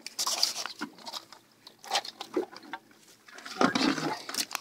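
Live Dungeness crabs scrabbling in a wire crab trap: irregular clicks and taps of shells and legs against each other and the mesh, with a louder rustle of handling a little past three and a half seconds in.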